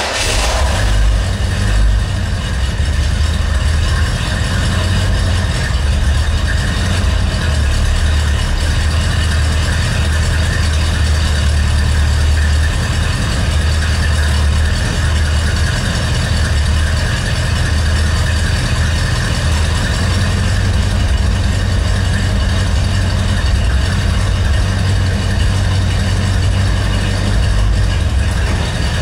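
Buick Electra V8 running through a Flowtech-muffled exhaust: it comes on suddenly, a little stronger for the first couple of seconds, then settles into a steady idle with a low exhaust rumble.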